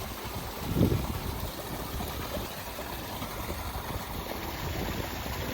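Running water of a small mountain stream or spring, a steady rushing hiss, with a low uneven rumble underneath that is loudest about a second in.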